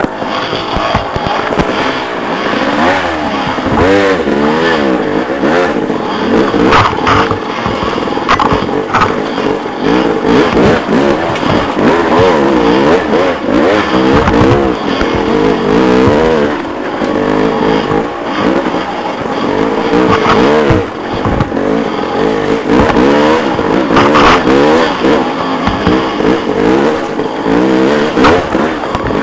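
Dirt bike engine revving up and down constantly as it is ridden over rough ground, its pitch rising and falling every second or so. Occasional sharp knocks come through.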